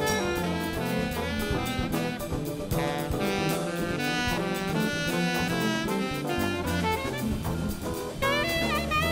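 Jazz big band playing, with saxophone and brass lines over a drum kit.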